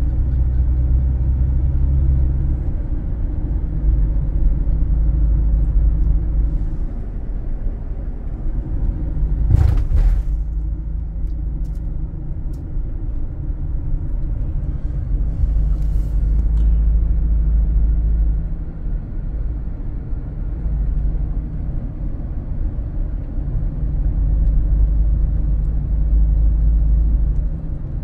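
Steady low rumble of a car driving, engine and road noise heard from inside the vehicle, with a brief sharp knock about ten seconds in.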